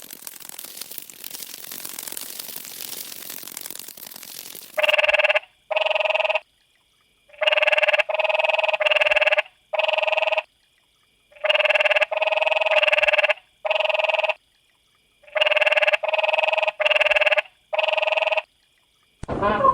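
An animal's repeated short calls, each about half a second long and evenly pitched, coming singly or in quick runs of three, after about five seconds of faint hiss.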